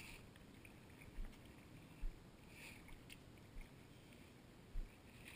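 Faint splashing and sloshing of ankle-deep water, with four short dull low thumps.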